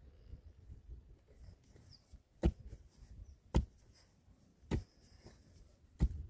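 Four sharp knocks, evenly spaced about a second apart, over a faint low rumble.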